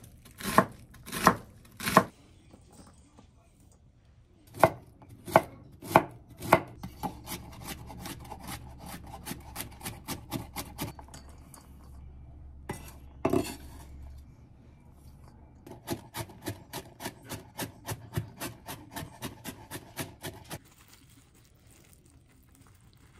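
Kitchen knife chopping onion and carrot on a wooden cutting board: a few heavy, slow strokes, then runs of quick, lighter chopping at about four strokes a second, which stop near the end.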